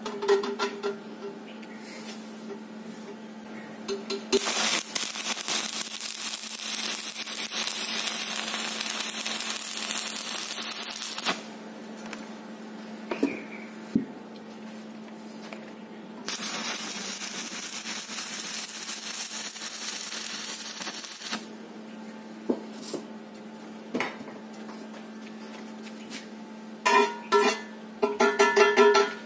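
Electric arc welding a threaded mild-steel bushing onto a sheet-steel fuel tank: two runs of steady crackling arc hiss, each some five or six seconds long, under a steady hum. Near the end come a series of sharp, ringing metal strikes on the steel tank.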